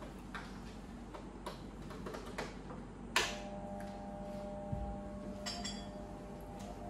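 Light clicks and taps of metal jewellery and bangles being handled, with one sharper clink about three seconds in that rings on briefly.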